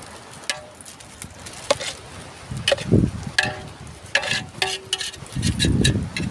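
Plastic spice sachets crinkling and being torn open, and a spatula stirring through fish pieces in a metal pot, heard as scattered sharp clicks and crackles. Low gusts of wind buffet the microphone about three seconds in and again near the end.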